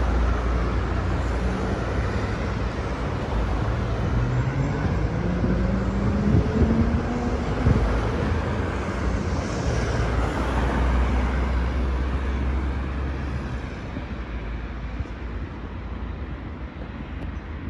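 Street traffic passing with a steady low rumble; about four seconds in, one vehicle's engine rises in pitch as it accelerates, and the traffic noise eases off near the end.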